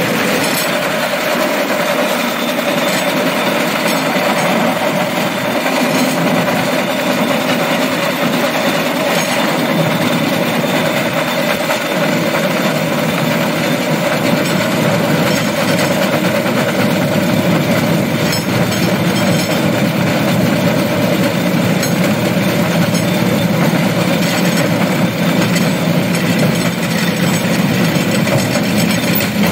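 Rail cart rolling along the track: a steady drone of steel wheels on the rails with a held tone, and a few faint clicks.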